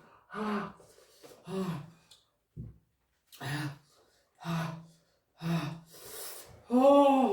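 A person makes short vocal gasps and exclamations about once a second, then a long moan near the end that rises and falls in pitch. It is a pained reaction to a mouth burning from extremely spicy ramen.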